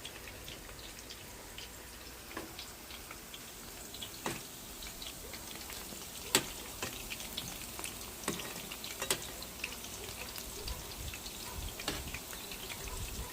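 Lumpia (egg rolls) deep-frying in hot oil in an electric pan: a steady sizzle with scattered crackles and pops, the sharpest about six seconds in.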